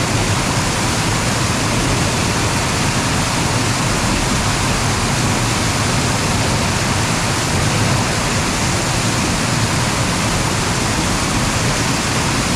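Steady, loud rush of fast-flowing water close by, unbroken throughout.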